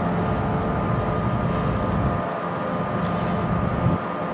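Cargo ship's machinery running with a steady hum over a low rumble; the rumble thins out briefly twice.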